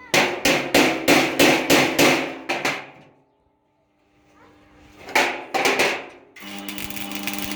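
Hammer blows on metal, about three a second for the first few seconds. After a short pause come a few more blows, and near the end a steady machine hum starts.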